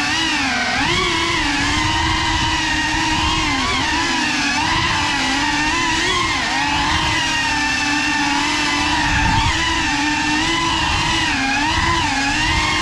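A GEPRC 3.5-inch cinewhoop FPV quadcopter's motors and propellers whining, the pitch rising and falling constantly with the throttle as it manoeuvres, heard from the camera riding on the drone.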